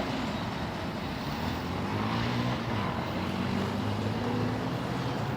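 A steady low engine drone with a few wavering low tones over a constant rumble, with no wheel clicks.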